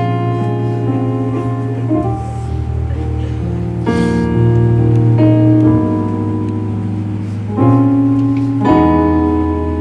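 Keyboard playing slow, held chords that change every second or two.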